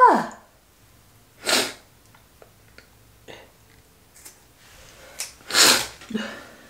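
A woman's short "ah!" cry falling in pitch at the start, then two breathy puffs of air, about a second and a half in and near the end, the second louder. A few faint snips of scissors cutting hair fall in between.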